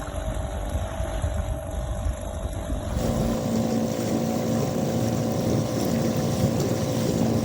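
A small boat motor running steadily on the water, with water and wind noise over it; the sound changes abruptly about three seconds in.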